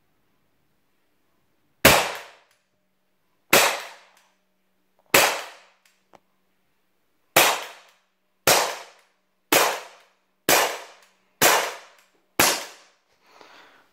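Umarex Glock 17 Dual Ammo CO2 air pistol firing .177 pellets: nine sharp cracks, each trailing off briefly, the first three spaced out and the last six about a second apart.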